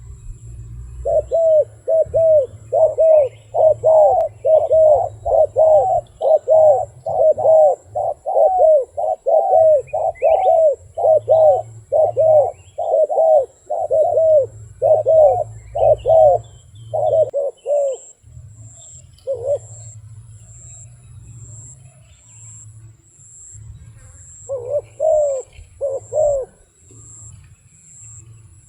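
A wild dove cooing in a long run of short, arched coo notes, about two a second, that breaks off and resumes briefly with a few more notes near the end. A low rumble runs underneath.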